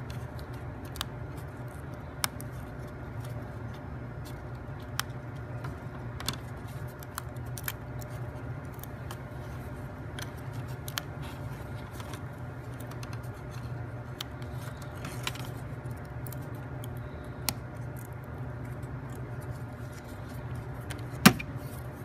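Thin laser-cut plywood parts being pressed out of their sheet and handled: scattered small snaps and clicks, with one louder click near the end, over a steady low hum.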